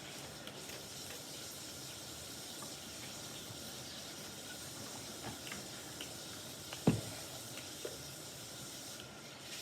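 Hands mixing sticky, half-formed glue slime in a bowl: soft wet squishing with a few small clicks and one sharper click about seven seconds in.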